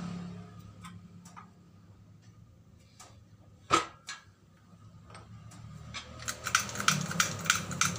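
Scattered light metal clicks and one sharp knock about halfway through, then from about six seconds a fast run of clicks, several a second, as a hydraulic bottle-jack shop press is set up and worked, over a faint low hum.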